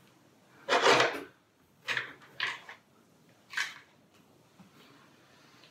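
Four short clicks and clacks from handling the camera and the props on the tray. The first, about a second in, is the loudest and longest; three shorter, sharper ones follow over the next few seconds.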